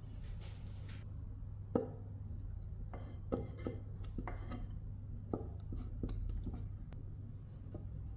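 Irregular knocks and taps, about ten in all and unevenly spaced, from workpieces and tools being handled in a woodworking shop, over a low steady hum.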